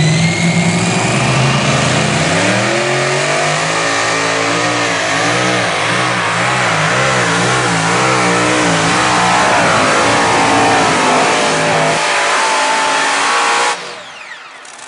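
Twin-engine supercharged modified pulling tractor at full throttle, dragging a weight sled. The engine note climbs over the first couple of seconds, then wavers up and down for most of the pull. It stops abruptly near the end.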